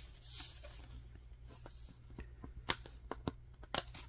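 Stiff cardboard board-book pages being handled: two soft rustles of a page sliding under the hand, then a run of light clicks and taps as a small cardboard flap is fingered and lifted.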